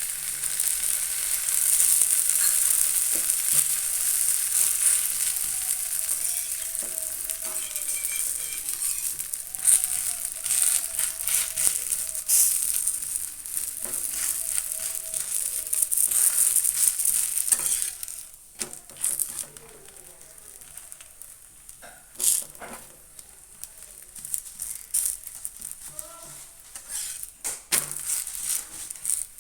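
Vegetable paratha frying in hot oil in a pan, sizzling steadily, with sharp clicks and scrapes. The sizzle drops away suddenly about two-thirds of the way through, leaving a quieter fry and scattered clicks.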